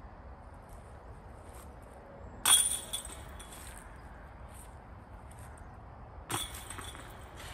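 Disc golf putts hitting the basket's metal chains twice, each a sharp crash of clinking, briefly ringing chains: the louder one about two and a half seconds in, a second near the end.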